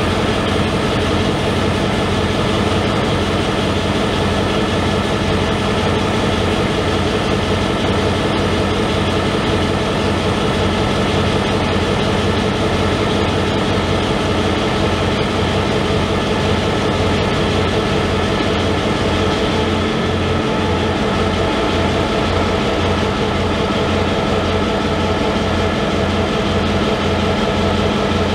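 Diesel-electric locomotives, a P class and a T class, idling at a standstill: a steady engine note with an even, regular low throb.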